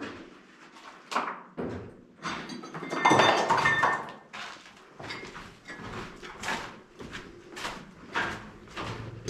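Footsteps on a hard, gritty floor, about two a second, with a louder scraping, rustling noise about three seconds in.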